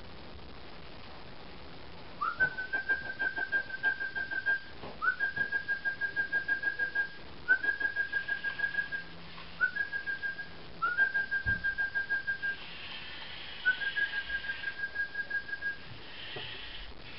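Lego EV3 robot motors whining in six bursts of one to two and a half seconds. Each burst rises in pitch as it starts, then holds steady with a fast pulsing flutter.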